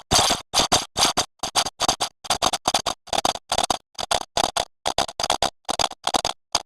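A digitally edited sound effect chopped into rapid stuttering fragments, about three short bursts a second, each cut off sharply into silence.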